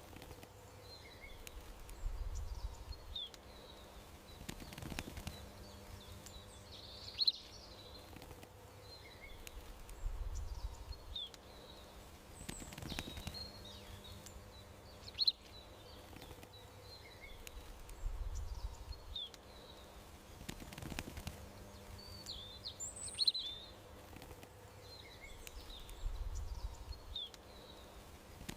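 Small garden birds chirping and twittering in short calls, with a sharp click and a soft low thud each about every eight seconds. The whole pattern repeats at that spacing, like a looped ambience track.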